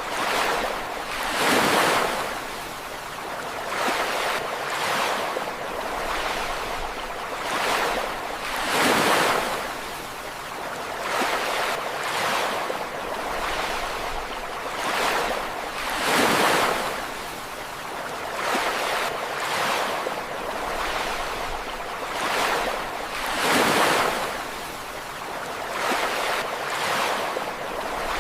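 Ocean waves breaking and washing in, a steady rush that swells and ebbs every couple of seconds, with a bigger surge about every seven seconds.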